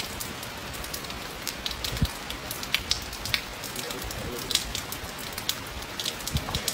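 Scattered light crackles and sharp ticks at irregular intervals over a steady outdoor hiss.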